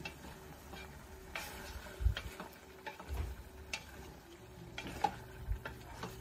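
Wooden spoon stirring chunks of meat in a stainless steel stockpot, with irregular knocks of the spoon against the pot over a faint sizzle of frying.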